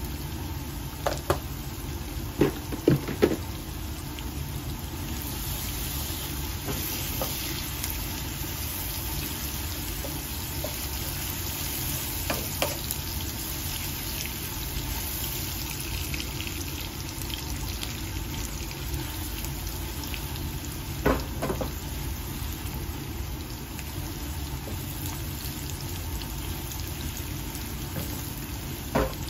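Sliced potatoes and onions frying in oil in a nonstick pan: a steady sizzle, with a few sharp knocks of a spoon and wooden spatula against the pan, several near the start and a couple more later as the mixture is stirred.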